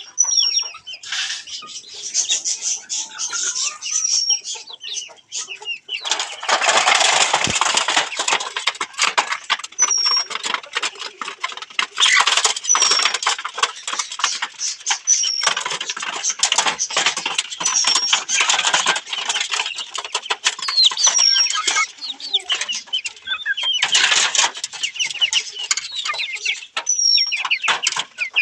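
A group of Australorp chickens clucking and scuffling, with a dense scratchy racket that grows louder about six seconds in. A short high chirp repeats every few seconds on top.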